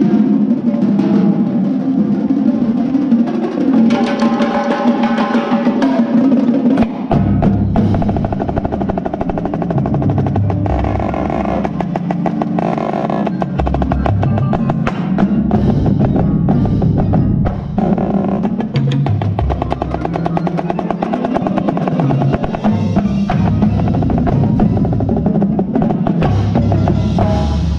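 Indoor percussion ensemble playing its show: a marching snare drum heard close up over pitched keyboard percussion, with deep drum strokes coming in about seven seconds in.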